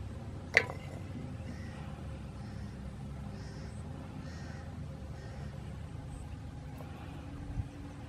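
A low steady rumble, with one sharp click about half a second in and a soft thump near the end, as hands work sticks and string around an aluminium drink can.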